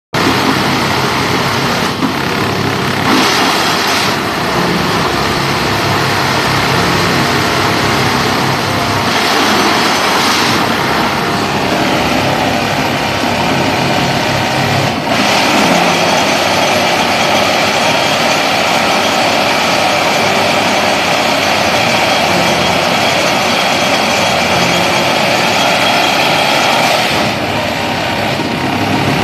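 Railway switch tamping machine working a turnout: its diesel engine and hydraulics run steadily and loudly. Stretches of louder, higher-pitched buzzing come a few seconds in, again around ten seconds, and through most of the second half, as the tamping units vibrate in the ballast.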